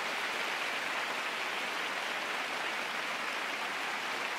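Arena audience applauding steadily at the end of a figure skating program.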